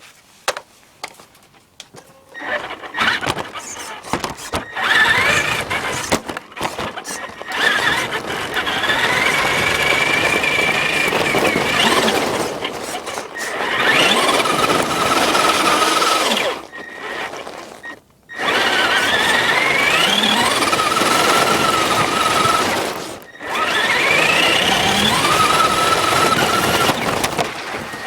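Radio-controlled car running in several bursts, its motor whine rising in pitch each time it speeds up, over a steady rushing noise, with brief pauses between runs.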